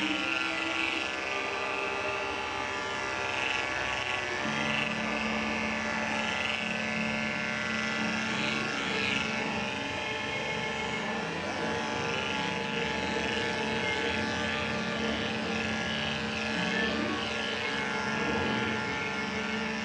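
Andis five-speed corded electric dog clipper, fitted with an Oster attachment comb, running steadily with a continuous motor hum while clipping a dog's coat; a lower hum joins in about four and a half seconds in.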